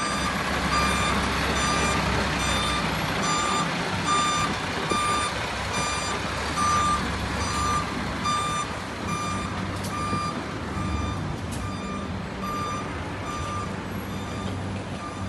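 A coach's reversing alarm beeping steadily, about two short beeps a second, over the low rumble of its diesel engine; the beeping stops near the end.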